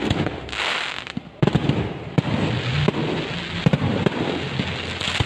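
Aerial fireworks bursting: a string of sharp bangs, roughly one a second, over a steady hiss, with a louder rushing hiss about half a second in.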